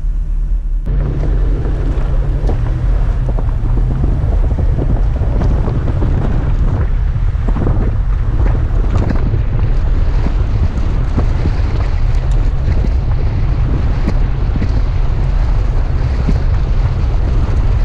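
Toyota FJ Cruiser driving through deep sand: a steady low vehicle rumble under heavy wind buffeting on the microphone, with frequent small knocks and rattles. The sound gets louder about a second in.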